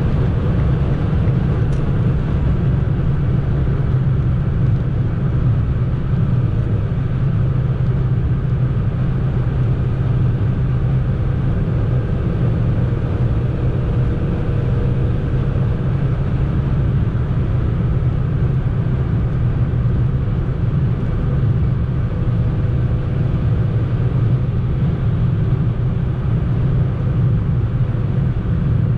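Fiat Panda driving at motorway speed, heard from inside the cabin: a steady low drone of engine and road noise.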